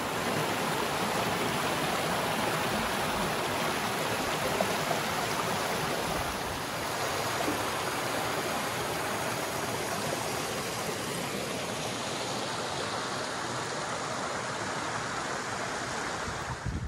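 Mountain stream tumbling over rocks in small cascades, a steady rush of water.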